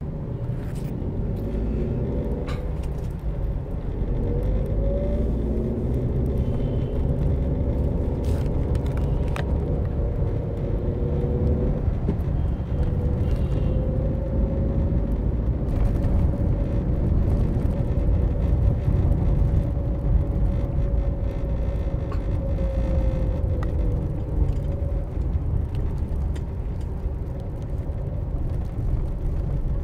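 Road noise from a vehicle driving through city traffic: a steady low rumble with an engine note that rises and falls, and a few sharp clicks.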